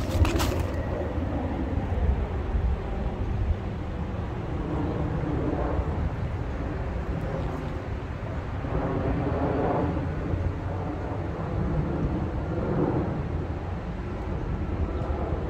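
Outdoor ambience dominated by wind on the microphone: a steady low rumble, with a few slow swells of sound rising and fading.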